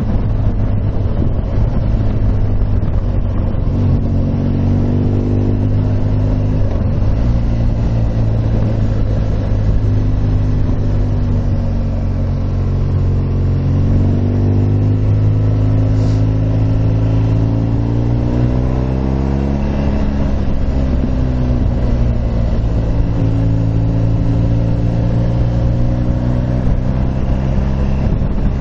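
Motorcycle engine running under way, its pitch climbing and dropping several times as it accelerates and eases off, over a steady rush of wind and road noise.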